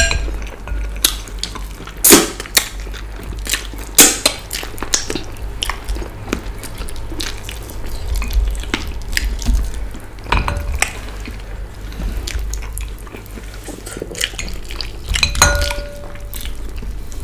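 Wet, sticky sounds of hand-eating okra and ogbono soup with fufu: fingers squelching in the slimy soup and mouths smacking as meat is picked off the bones. A scatter of short sharp clicks, the loudest about two and four seconds in, runs over a low steady hum.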